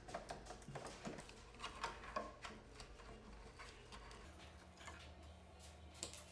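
Faint light clicks and taps of a small screwdriver and fingers working screws out of a table tennis robot's base, scattered and irregular, with more of them in the first couple of seconds and a few again near the end.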